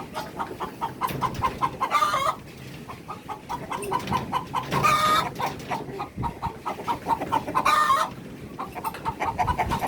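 Chickens cackling: a fast run of short clucks with a louder drawn-out call about every three seconds. This is the cackle chickens usually give when laying eggs, though none are laying now.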